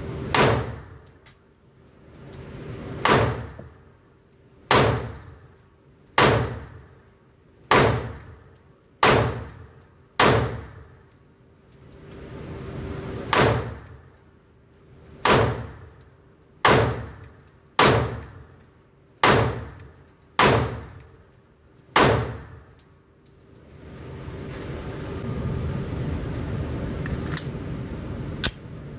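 Palmetto State Armory Dagger 9mm pistol firing about fourteen single shots at a slow, steady pace, one to three seconds apart, each crack ringing out in an indoor shooting range. A steady ventilation hum runs underneath, and a couple of light clicks come near the end.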